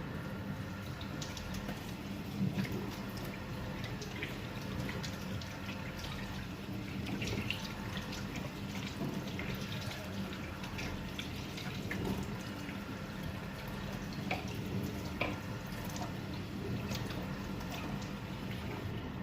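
A kitchen tap running into a sink while fingers are rinsed under the stream, with scattered small splashes and knocks over a steady low hum.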